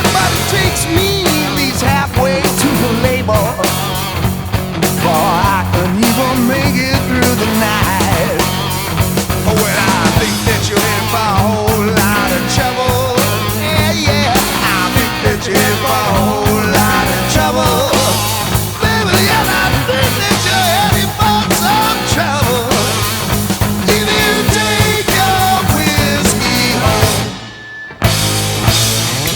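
Rock music with a steady beat and a melodic line over it. It drops out for about a second near the end, then starts again.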